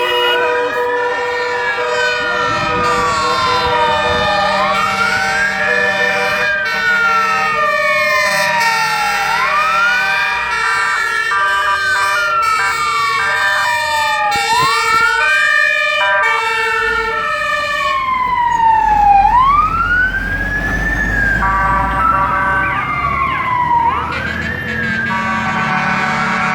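Fire engine sirens from several arriving units. One siren wails, climbing quickly and falling slowly about every five seconds, over other overlapping steady siren tones. A heavy truck engine rumble swells about two-thirds of the way through.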